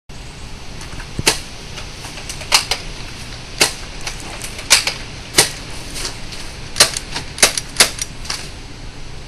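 Airsoft gun firing about nine single shots at irregular intervals, each a sharp crack, over a steady background hiss.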